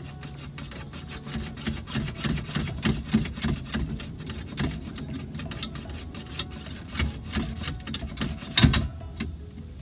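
Hand working at the factory radio in a Honda Acty's dash opening: irregular clicks, knocks and scraping as it is pried and rattled in its mount, with one louder knock near the end.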